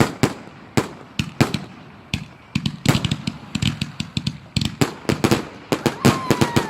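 Fireworks going off: a rapid, irregular series of sharp bangs and crackles, several a second, growing denser after the first couple of seconds, with a faint falling whistle near the end.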